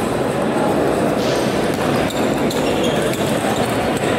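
Table-tennis balls clicking irregularly off tables and bats, from the rally and the other tables around, over a steady hubbub of voices and movement in a large sports hall.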